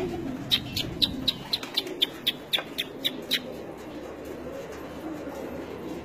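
A flock of domestic pigeons cooing in a low, continuous murmur. About half a second in comes a quick run of about a dozen short high chirps, some four a second, lasting about three seconds.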